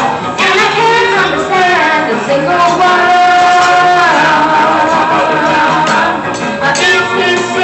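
A boy singing a 1950s classic into a handheld microphone, holding one long note about halfway through.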